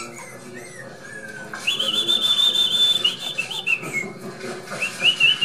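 Three-week-old Border Collie puppies whining in high, thin, drawn-out tones. The tones waver and fall in pitch, with a longer whine from about a second and a half in and another near the end.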